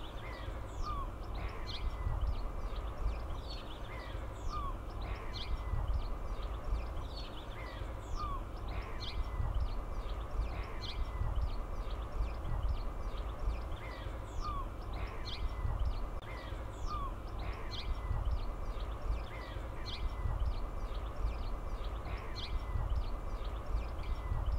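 Wild birds calling and singing, short high chirps and sweeping notes recurring about every two seconds, over a steady low rumble of wind.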